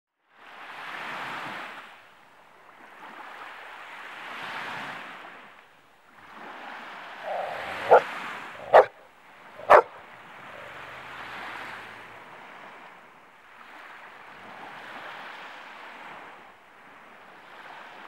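Small sea waves washing onto a beach, a swell every few seconds. Just past the middle a dog barks three times in quick succession, louder than the surf.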